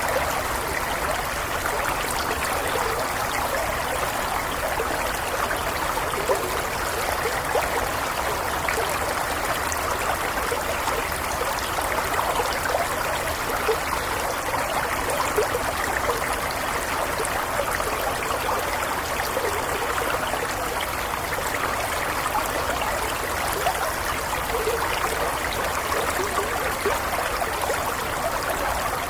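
Gentle stream flowing over stones, a steady babble and trickle of water with small bright splashes.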